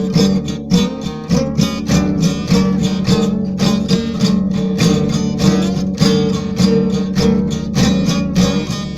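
Country-style instrumental music led by rapidly picked and strummed acoustic guitar over a steady bass.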